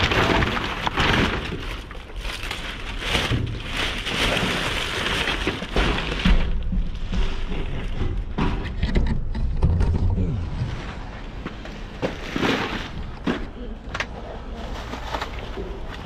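Items being rummaged through in a full dumpster: a steady rustling with many irregular knocks and thuds, over a low rumble.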